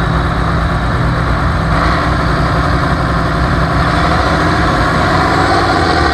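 Belarus tractor's diesel engine running hard under heavy load as it pulls against a chained tractor in the mud, a loud, steady, deep engine note.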